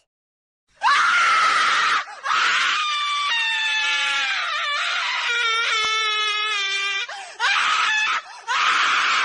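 High, loud screaming, starting about a second in, in several long bursts with short breaks. Through the middle the screams waver and are drawn out.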